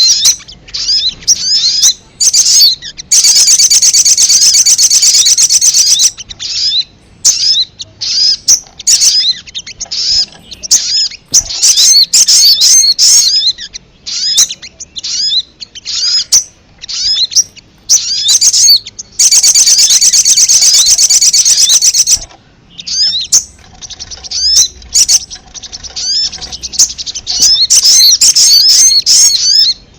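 Sogon (sogok ontong) bird calling in a lure recording: rapid, high, sharp chirps repeated over and over, with a fast chattering run about three seconds in, another around twenty seconds, and a shorter one near the end.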